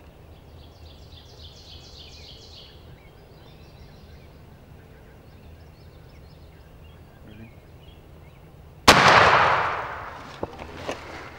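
A single shotgun blast from a turkey hunter about nine seconds in, cutting through the quiet and fading away over a second or so: the shot that kills a jake turkey. Before it, faint bird calls chirp in the background.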